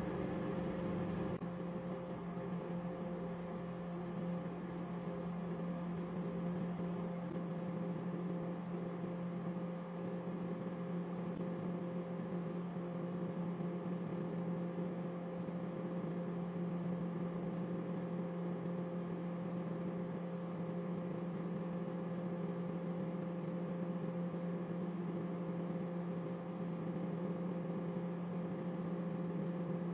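Microwave oven running with a steady, even hum.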